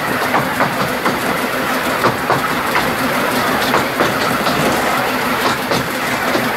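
Narrow-gauge train running along the track: a steady rumble with irregular clicks of the wheels over the rail joints.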